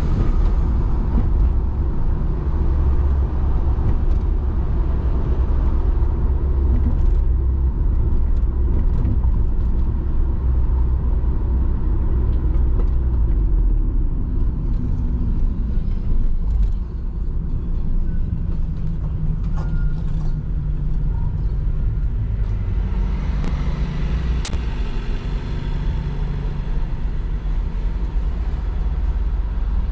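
Steady low rumble of road traffic while driving in city traffic, with one sharp click about 24 seconds in.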